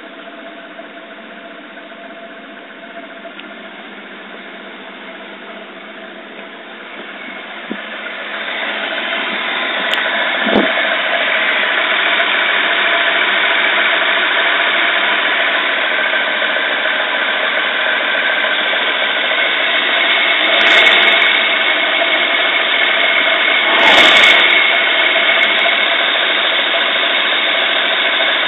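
Toyota 2JZ-GTE twin-turbo inline-six idling roughly while overfueling, a fault the owner traced to injectors needing service and flow-matching, a bad O2 sensor and bad spark plugs. The steady idle gets louder about eight seconds in, with a few short knocks later on.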